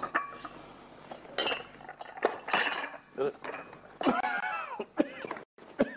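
China teacups and a teapot clinking against each other and the tray as the tray is set down on a table, in several light separate clinks.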